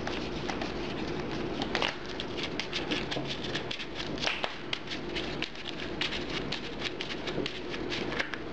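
Trading cards being handled on a table: a run of quick, light, irregular ticks and flicks as cards are thumbed through and laid down.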